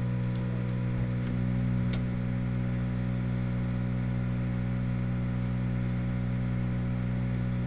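Steady low electrical hum made of several even tones, with a couple of faint clicks about one and two seconds in.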